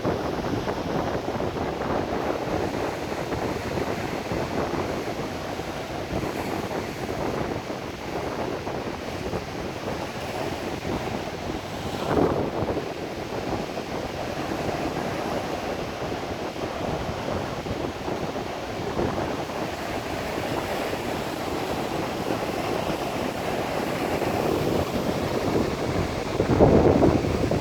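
Sea waves washing on the shore in a steady wash, with louder surges about halfway through and near the end, and wind buffeting the microphone.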